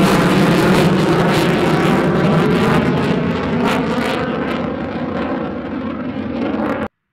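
F-35 fighter's single Pratt & Whitney F135 jet engine, loud as the jet climbs away after takeoff: a steady rushing noise with a crackle through it. It eases off slightly and cuts off suddenly near the end.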